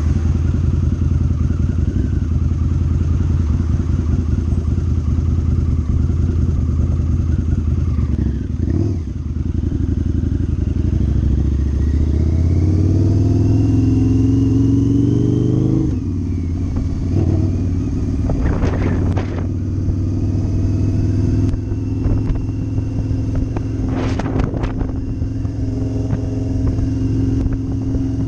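Cruiser motorcycle engine running under way. It eases off briefly, then climbs in pitch under acceleration and drops back suddenly as the throttle closes, settling to a steady cruise. A couple of short clattering bursts come later.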